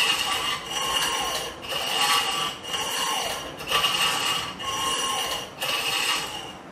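Hacksaw cutting in steady back-and-forth strokes, about one a second, with a ringing tone on each stroke. The sawing stops near the end.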